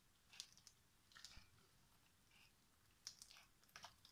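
A spatula working sticky choux pastry dough in a stainless steel pot as an egg is beaten in: a few faint, short strokes spaced out over the seconds.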